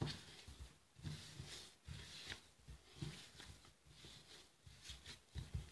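Faint, irregular kneading sounds: hands pressing and rubbing a stiff biscuit dough around a china bowl, with soft low thumps as the dough and bowl are pushed.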